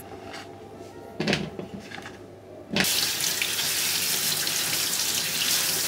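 Kitchen faucet turned on about halfway through, its spray running steadily onto peeled garlic cloves held in a stainless mesh strainer. Before that there are only a couple of faint knocks.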